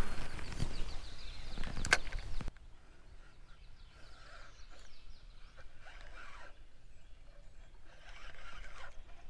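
Wind rushing on the microphone with handling noise and two sharp knocks about two seconds apart. The sound then drops suddenly to faint outdoor quiet.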